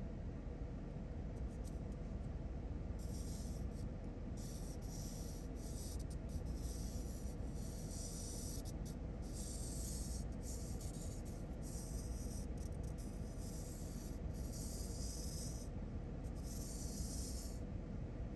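Scratchy rubbing and scraping in irregular stretches over a steady low hum, as a toy's small clockwork wind-up gearbox is handled and worked. The gearbox is seized: glue has got inside and stuck its main gear to the axle.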